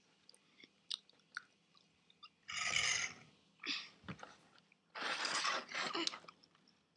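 A few faint clicks of plastic Lego pieces being handled and set down on a wooden table, then crunchy, noisy stretches of candy being chewed close to the microphone. The longest stretch comes about five seconds in.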